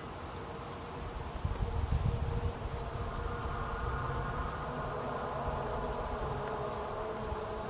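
Insects droning steadily in a high pitch, with wind buffeting the microphone in low gusts from about a second in. From about three seconds in, a fainter steady hum made of several tones joins them.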